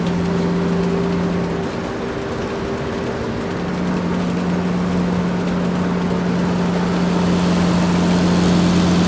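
A steady vehicle-engine hum, low and even with a hissing haze over it; its lowest tone drops out for a moment about two seconds in and then returns.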